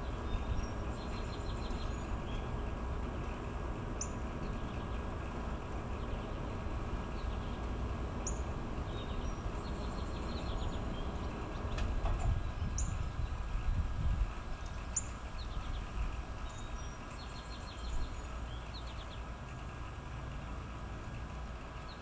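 Outdoor ambience: a steady low rumble, with short high bird chirps and quick trilled calls scattered through it.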